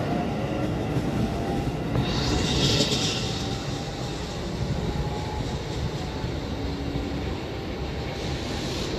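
JR 719 series electric train running on standard-gauge track: a steady low rumble with a faint, even motor whine. A brief hiss rises and fades about two to three seconds in.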